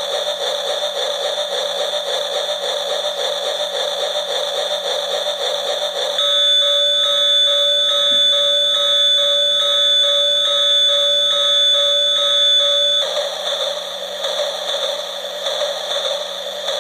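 Battery-powered Titipo toy train switched on, its small speaker giving out a harsh electronic buzzing tone. About six seconds in the sound changes to a louder, steadier electronic tone, and about thirteen seconds in it goes back to the buzz.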